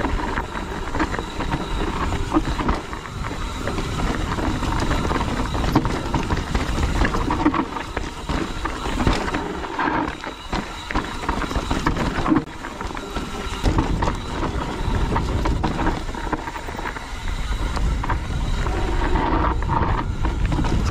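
Mountain bike ridden down a rough, rocky trail: a constant clatter of the bike rattling and knocking over rocks, with tyre noise and wind rumble on the microphone.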